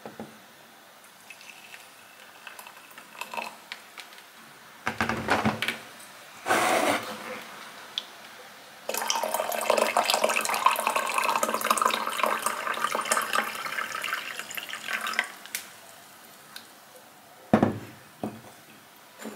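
Water poured from a kettle into a ceramic mug, a steady splashing pour lasting about six seconds from around the middle. A couple of short handling clunks come before it, and two knocks near the end.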